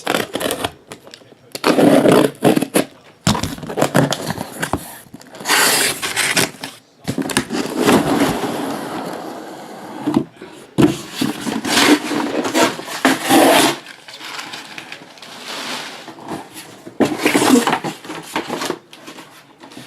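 Cardboard case and packing tape being scraped, torn and handled in irregular loud bursts, with one longer smooth rasp in the middle, as a taped case of trading-card boxes is opened.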